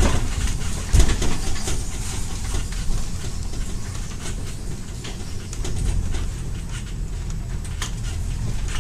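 Funicular car running along its rails: a steady low rumble with a few sharp clacks, the loudest about a second in.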